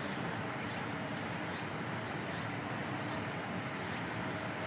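Steady outdoor background ambience: an even rushing noise with nothing standing out.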